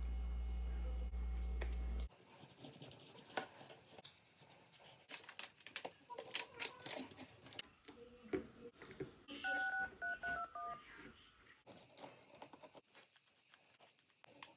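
A steady low electrical hum cuts off suddenly about two seconds in. Small clicks and taps of phone-repair handling follow, with a short run of electronic beeps stepping down in pitch about ten seconds in.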